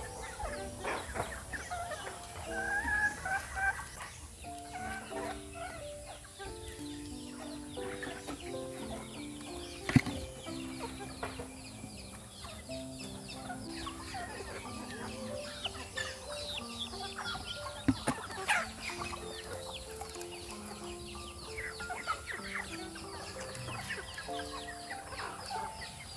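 A flock of chickens clucking and calling as they feed, over background music with held notes. Two sharp clicks stand out, about ten and eighteen seconds in.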